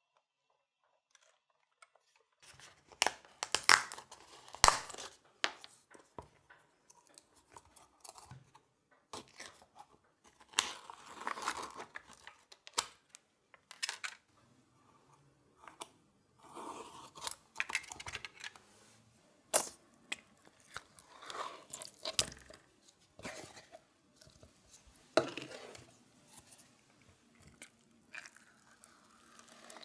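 A plastic mascarpone tub being opened and emptied. The foil seal peels and crinkles off, and the tub and cheese knock and scrape against a glass bowl, in irregular rustles and sharp clicks starting about two seconds in.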